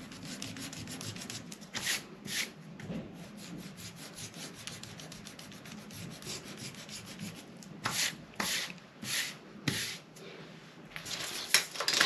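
Pencil eraser rubbing back and forth over pattern paper, cleaning off pencil lines. There is a steady faint scratching, with a few louder strokes about two seconds in and a cluster of them around eight to ten seconds.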